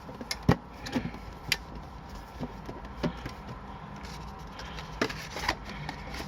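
Scattered light clicks and knocks from a card tin and its card packs being handled and set down, over a low steady hum.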